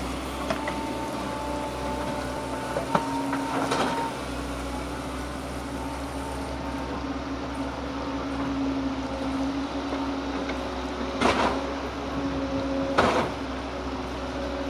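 Volvo mini excavator's diesel engine running steadily while the boom and bucket work. Three short bursts of noise rise over the drone, once about four seconds in and twice near the end.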